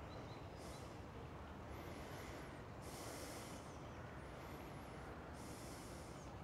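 Faint breathing through the nose, a handful of soft, hissy breaths, each under a second, coming every second or two.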